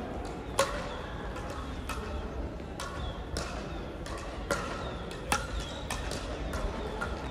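Crossminton rackets hitting a speeder in a rally: sharp hits at irregular intervals of about half a second to a second, the loudest shortly after the start and about four and a half and five seconds in, over the hum of a large hall.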